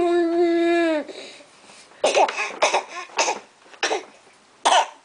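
A baby hums a long, steady 'mmmm' with closed lips, stopping about a second in. This is followed by about five short, breathy bursts of voice.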